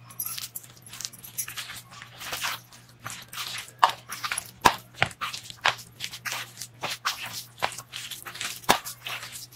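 A hand kneading a moist mixture of grated cabbage and gram flour in a plastic bowl: irregular soft squishing and crunching, with a few sharper clicks around the middle. A faint steady low hum runs underneath.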